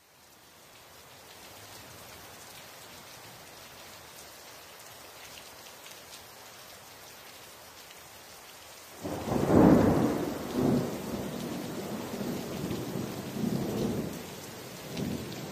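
Steady rain hissing, then about nine seconds in a sudden loud clap of thunder that keeps rumbling and rolling in several swells.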